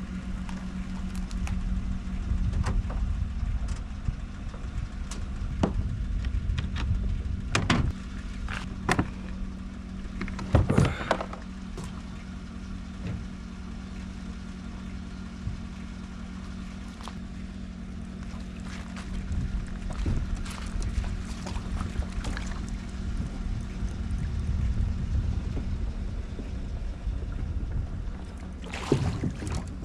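Pickup truck engine running steadily, a low even hum, with scattered knocks and clunks of gear being handled and loaded, loudest about eight to eleven seconds in.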